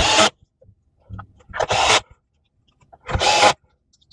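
Cordless drill/driver with a T20 Torx bit running in three short bursts about a second and a half apart, driving screws into the plastic base housing of a Shark Duo Clean vacuum.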